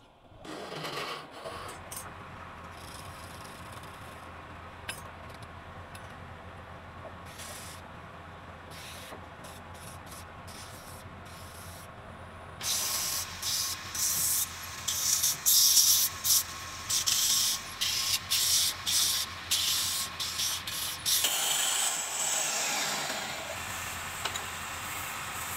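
Wood lathe motor running with a steady hum. About halfway through, a hand begins rubbing the spinning wooden workpiece, adding loud scratchy hissing in repeated strokes, which settles into a softer steady hiss near the end.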